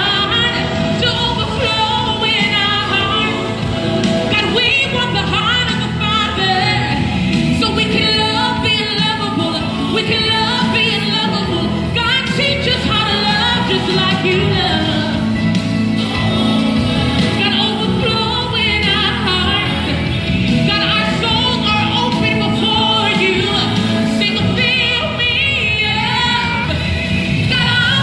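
Live gospel music: a woman singing into a microphone with sliding, wavering notes over keyboard accompaniment, heard through the stage sound system.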